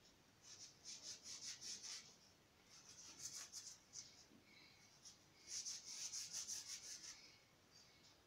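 Faint hand scrubbing of a small iron piece being cleaned of rust, rubbed with a white pad in quick strokes. It comes in three bouts: from about half a second in, around three seconds, and from about five and a half to seven seconds.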